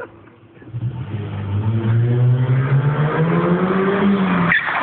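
Ford Escort engine revving hard under load, the revs climbing steadily for about four seconds before cutting off suddenly near the end, as the car is driven to spin its wheels.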